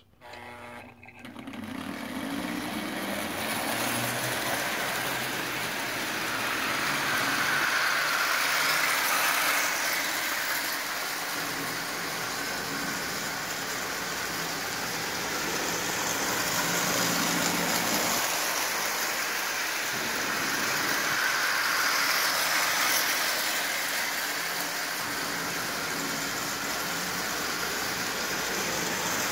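Marx tinplate toy train running around three-rail track: a Commodore Vanderbilt locomotive with a Marx double-reduction 400 electric motor pulling 16 Marx cars, a steady rumble of motor and wheels on the tin rails. It comes up about a second in and then grows louder and softer in turns.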